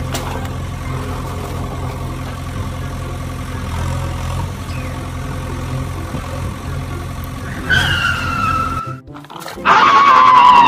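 Low, steady engine hum of a heavy vehicle. Near the end come two falling whistle-like tones, the second much louder, like cartoon sound effects.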